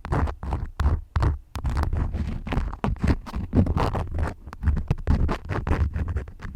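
Wax crayons scratching in quick, irregular strokes against a close microphone. Sharp clicks and low thuds of handling come between the strokes.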